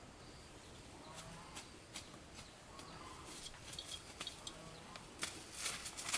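Faint calls of farm animals, two or three short calls in the first half, with rustling and sharp crackles that grow louder near the end.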